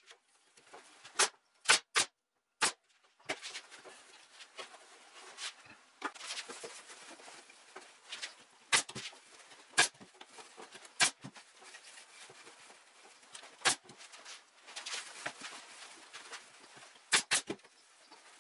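Staple gun firing single staples through burlap into a wooden chair frame: sharp snaps, a quick cluster of four in the first few seconds, then one every second or few and a close pair near the end. Between shots, a scratchy rustle of burlap and loose fibre stuffing being packed and folded by hand.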